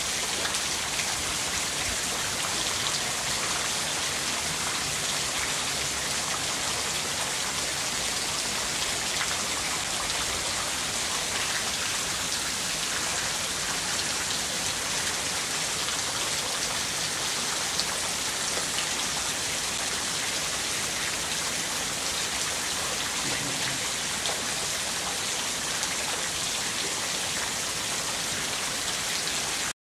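Steady rain falling on wet concrete and puddles: an even hiss of spattering drops, with one brief sharp tick about 18 seconds in.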